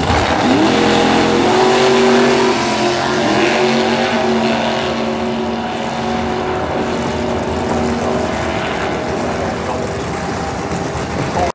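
Turbocharged 565 ci Dart big-block V8 of a 1000+ bhp Vauxhall Cavalier drag car launching off the start line and running down the quarter mile. The engine note rises sharply about half a second in, then holds and slowly fades as the car pulls away. The car is struggling for traction off the line.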